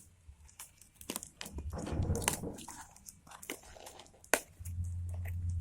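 Handling noise from opening a parcel by hand: packaging rustling and crinkling, with scattered clicks and taps and one sharp click a little past four seconds in. A low hum comes in near the end.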